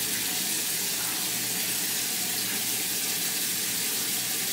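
Bathroom sink tap running in a steady, even stream while a face is washed with a damp cloth.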